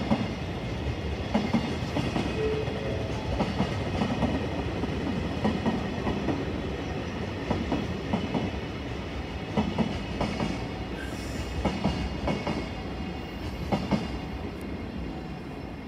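Freight train of container wagons rolling past, a steady rumble with wheels knocking over rail joints in quick pairs about every two seconds. The rumble eases a little near the end as the last wagons go by.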